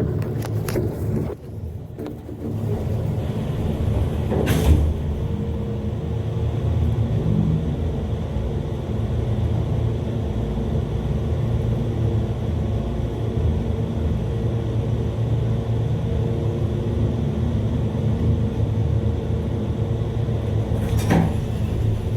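Elevator cab travelling in its shaft: a steady low rumble with a faint hum, with a sharp knock about four and a half seconds in and another near the end.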